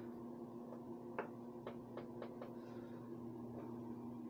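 Quiet room tone with a steady low hum and a handful of faint light ticks scattered through the middle.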